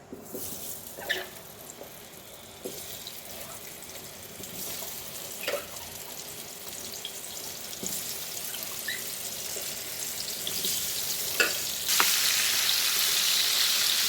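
Potatoes frying in hot oil in a cooking pot, with a spatula knocking against the pot a few times. About twelve seconds in the sizzling jumps suddenly much louder and stays loud.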